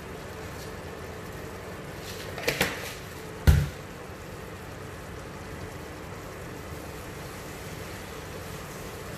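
Steady hiss of kitchen cooking noise from a pot of rice at a rolling boil beside a pot of frying mutton. About two and a half seconds in come a couple of light knocks, and a second later a single dull thump, the loudest sound.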